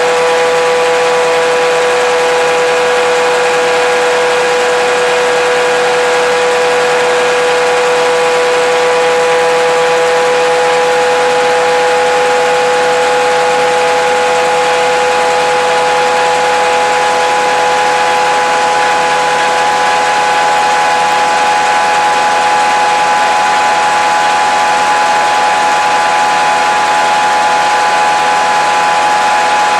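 Engine room of a NOHAB M61 diesel locomotive: its EMD 567 V16 two-stroke diesel engine runs loud and steady while the train is under way, with a constant whine over the engine noise.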